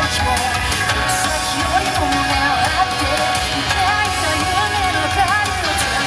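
Japanese rock song with a woman singing a melody over a full band backing.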